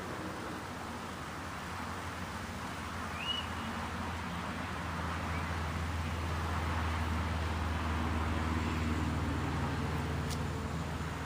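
Low engine hum of a road vehicle passing, growing louder over several seconds and easing slightly near the end, over a steady hiss of wind.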